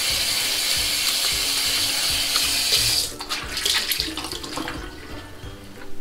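Bathroom sink tap running steadily into the basin for about three seconds, then stopping, followed by quieter, broken splashing as the face is rinsed with cold water after a shave.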